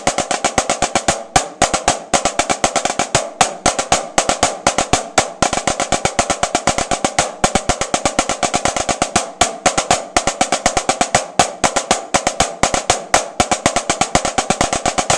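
Two snare drums played together in unison with wooden sticks: a fast, even stream of strokes with regularly accented notes standing out. The playing stops near the end.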